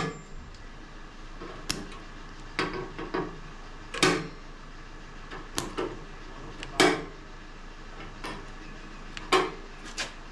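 GD90E spot-welding dent puller firing short weld pulses against the car's wheel arch panel: a string of about seven sharp snaps, a second or so apart. The welds take, but not strongly enough to hold for pulling.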